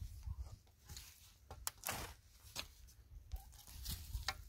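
Shovel blade cutting and scraping into dry, hard soil: several short crunching strokes as clods of earth break loose.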